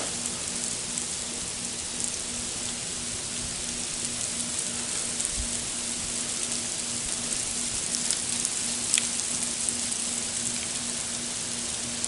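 Icy winter precipitation, sleet mixed with snow, falling steadily and pattering on surfaces as an even hiss, with a few faint ticks about two-thirds of the way through.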